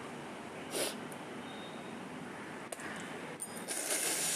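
Two short hissing mouth sounds from a person, one about a second in and a longer one near the end, over a faint steady hiss.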